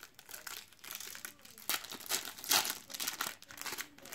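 Foil sachet of Panini Adrenalyn XL football trading cards crinkling and crackling as it is torn open by hand, loudest about halfway through.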